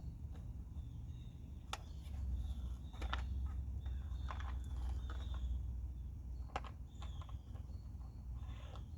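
Handling of drill bits and the drill: a few scattered sharp clicks and knocks over a steady low rumble, with no drill running.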